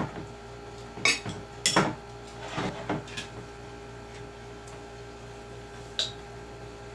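Cutlery and dishes clinking and knocking during a meal: a handful of sharp clatters in the first three seconds, then one more about six seconds in.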